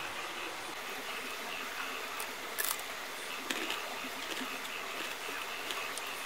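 Forest insects chirping steadily, with a few sharp clicks near the middle.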